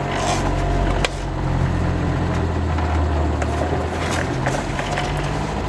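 Renault R5 driving, heard from inside the cabin: the engine runs with its pitch stepping up and down a few times, and there is one sharp click about a second in. It runs free of clunking, its transmission mount freshly replaced.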